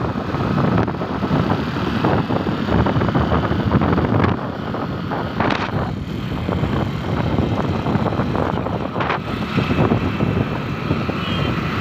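Wind rushing over the microphone with the road noise of a vehicle travelling along a highway, with a few short louder swells.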